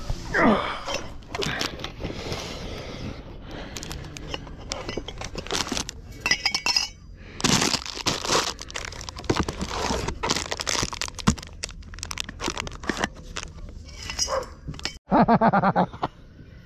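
Mate gear being handled: a thermos, a metal mate cup and a bag with a crisp packet, giving irregular clinks, knocks and crackles. A brief louder sound comes near the end.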